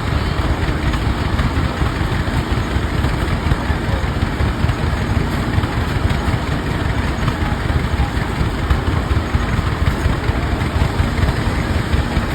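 Rumely OilPull tractor engines, slow-running two-cylinder kerosene engines, running steadily at an even pace.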